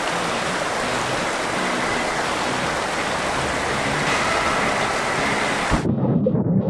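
Shallow creek water rushing and splashing right at the microphone. About six seconds in, the water closes over the camera and the sound cuts to a muffled underwater gurgle.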